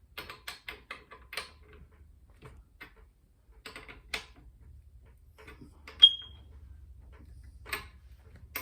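Clicks and knocks from tools and metal parts being handled during spin-bike assembly. A quick run of about six clicks comes first, then scattered single knocks, and about six seconds in one sharp metallic tap rings briefly.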